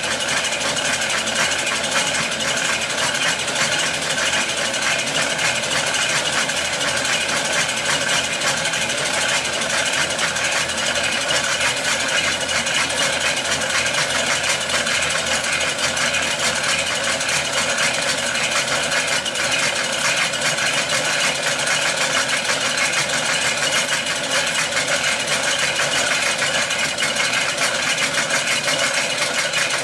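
Home-movie film projector running with a steady, fast mechanical clatter from its motor and film transport.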